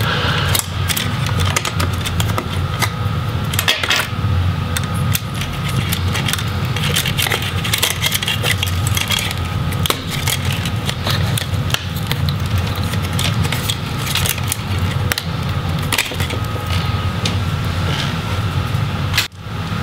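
Hands handling the cables and parts inside an opened laptop chassis: many small clicks, crackles and rustles of wire, plastic and metal as the DC jack cable is freed from its routing, over a steady low hum. The sound drops out briefly near the end.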